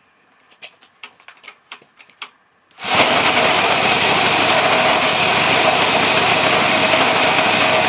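A few light clicks and knocks of handling, then about three seconds in two small lawnmower-type engines, chained together on a common shaft, start abruptly and run steadily and loudly together.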